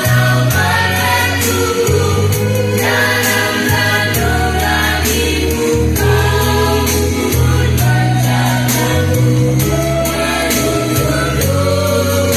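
A young girl singing a song over a band accompaniment, with a bass line that changes note every second or so and a steady drum beat.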